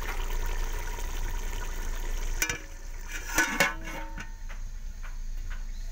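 Curry sizzling in a cooking pot. A metal lid then knocks against the pot with sharp clanks about two and a half and three and a half seconds in, followed by a few light ticks.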